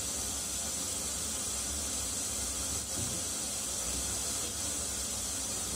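Steady radio static hiss from a Hitachi HTA-07 stereo tuner amplifier tuned between stations, no station coming through.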